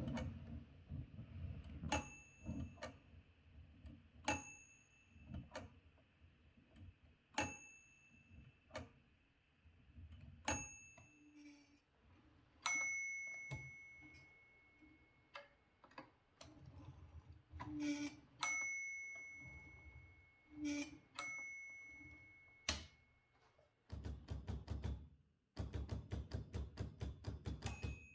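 Typewriter margin bells ringing amid the clatter of typing, the carriage ringing its bell each time it nears the end of a line. The first several rings are short and bright. Later rings are lower and ring on longer, and about four seconds from the end comes a run of fast, even key clatter.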